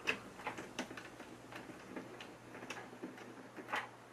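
Small screwdriver working the tiny screws of a front-panel plate: faint, irregular light clicks and taps, loudest right at the start and again near the end.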